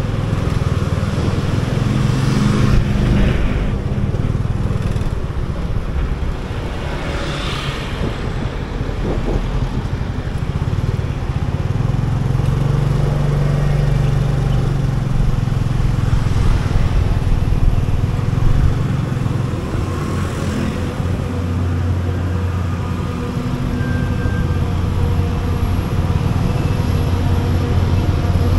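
Motor scooter's small engine running while being ridden along a city street, its low note shifting a few times with speed, mixed with road and traffic noise and a few brief swells of hiss from passing vehicles.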